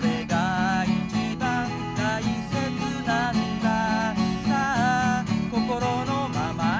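Acoustic guitar strummed in a steady rhythm, with a wavering sung melody over the chords.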